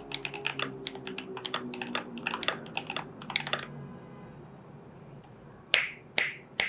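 Fast typing on a Glorious GMMK Pro mechanical keyboard with lubed and filmed switches and PBT dye-sub keycaps, stopping a little under four seconds in. Near the end come three louder, sharper knocks about half a second apart.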